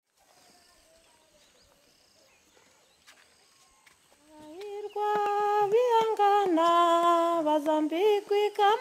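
Near silence for about four seconds, then a high voice starts singing, holding long notes and sliding between them.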